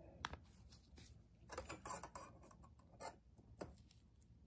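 Faint, scattered clicks and light knocks of small hard objects being handled, with a short busier patch of clicks and rustling about one and a half to two seconds in.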